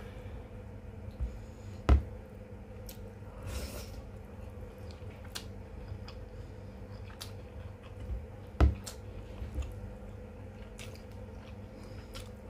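Close-miked chewing and eating of chicken and rice, with scattered small clicks. Two sharp knocks, about two seconds in and again about eight and a half seconds in, are louder than the chewing. A faint steady hum runs underneath.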